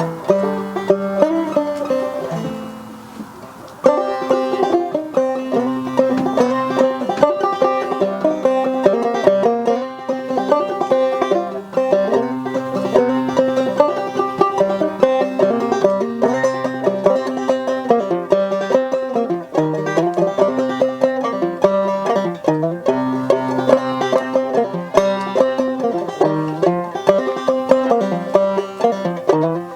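Acoustic string-band music without singing: the last notes of one song die away about two seconds in, and a quick picked instrumental tune on a plucked string instrument starts about four seconds in and keeps going.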